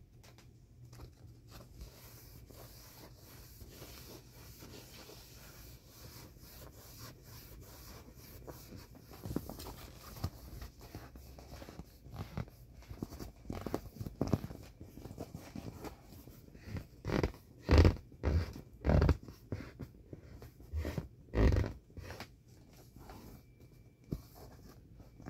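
A hand stroking and pressing the soft vinyl of an inflated Intex elephant ride-on toy. Faint rubbing at first, then louder separate rubs and thumps, the loudest a run of about five near the end.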